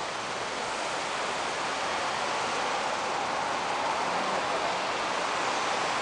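Steady wash of city street traffic at a busy intersection, getting slightly louder about two seconds in, with no distinct events.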